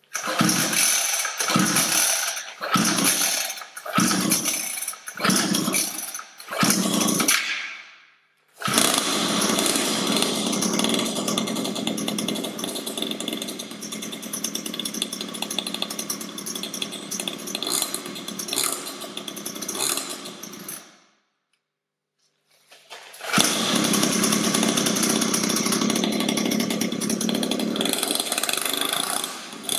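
Cheap 50cc two-stroke mini dirt bike engine on its first cold start with the choke on: a string of short bursts about one a second as the pull starter is yanked, then the engine catches about nine seconds in and runs steadily. Some twelve seconds later it cuts out, and after a couple of seconds of silence it starts again and keeps running.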